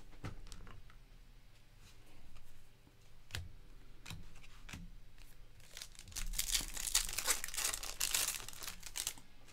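Foil wrapper of a 2024 Bowman Baseball card pack being torn open and crinkled for about three seconds in the second half. Before that come a few sharp clicks as cards are handled.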